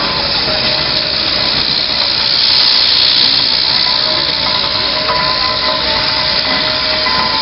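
Steam traction and showman's engines hauling a heavy load: a loud, steady hiss of steam that swells a little about two to three seconds in.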